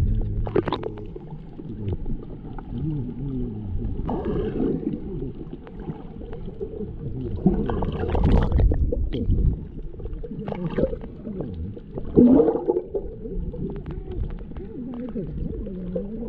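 Muffled underwater sound picked up by a camera in a waterproof housing: gurgling and bubbling water with wavering low glides, the high end cut away.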